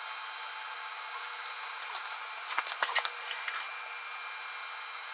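A gloved hand taking hold of a plastic oil funnel, giving a few short rubbing clicks about two and a half to three and a half seconds in, over a faint steady hiss.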